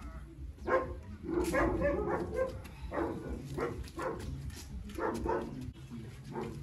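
A dog barking repeatedly, with short barks coming roughly once a second.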